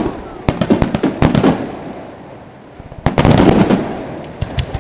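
Aerial fireworks bursting: clusters of sharp bangs and crackles, with the loudest, densest flurry about three seconds in and a few single reports near the end.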